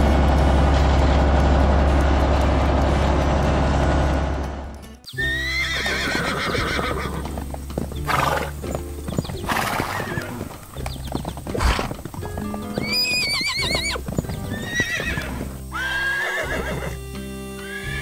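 A tractor engine sound effect runs steadily for about five seconds and cuts off abruptly. Horses then neigh several times over background music, some whinnies gliding down and one wavering, with a few knocks that may be hooves.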